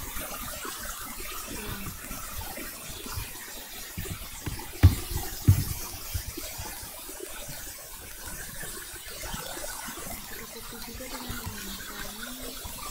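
Steady hissing background noise, with two dull thumps about five seconds in, roughly half a second apart.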